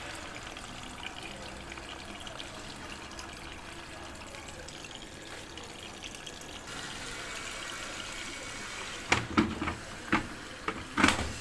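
Water running into a Samsung Ecobubble washing machine, a steady trickling hiss. Near the end, five sharp knocks stand out above it.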